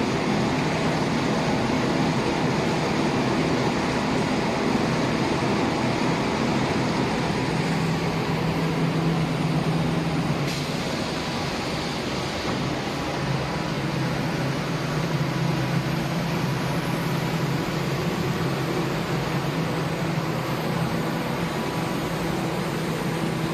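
Steady industrial machine noise: a constant low drone with hiss and several steady tones, typical of an automatic spray-painting machine and its fans or compressor running. It eases slightly about ten seconds in.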